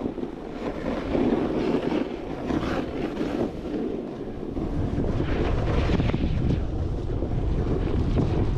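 Snowboard scraping and sliding down snow, with wind rumbling on the microphone, heavier from about halfway through.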